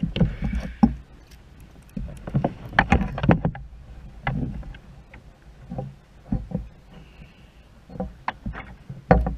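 Irregular knocks, taps and clunks of a freshly landed northern pike being handled in a landing net against the kayak, some sharp and loud, with a low rumble of wind on the microphone at times.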